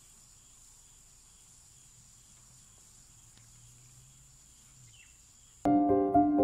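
Faint, steady high-pitched drone of insects, with a low outdoor rumble beneath it. About five and a half seconds in it cuts off and piano music starts loudly.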